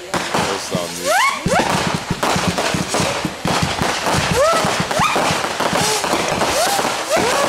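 A fireworks display going off: a rapid run of bangs and crackling from aerial shells and rising comets, with many short rising tones over it.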